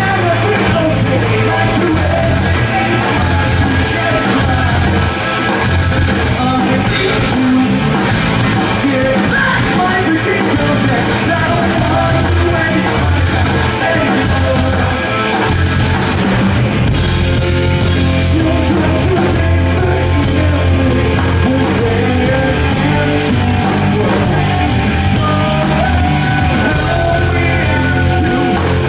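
Live rock band playing: electric guitars and drums under a lead singer's vocals through a microphone.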